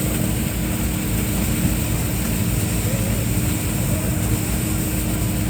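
Heavy construction machinery engine running steadily, a constant low drone with a steady hum.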